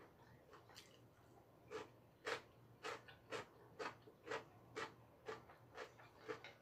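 Close-miked chewing of ramen pasta noodles: short, regular mouth clicks about twice a second, starting a little under two seconds in.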